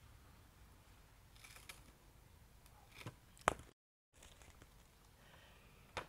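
Faint background with a few sharp knocks. The loudest, about three and a half seconds in, is a rock that a cockatoo has pushed off a wheelie bin lid striking the ground. The audio then drops out briefly.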